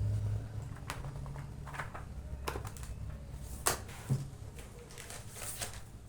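Books and their packaging being handled: scattered short rustles, taps and clicks, the sharpest nearly four seconds in, over a low steady hum.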